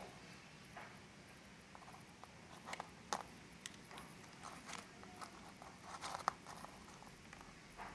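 Hands working on a CRT TV chassis and its connectors: scattered small clicks and taps, a few of them in quick pairs, over a faint room background.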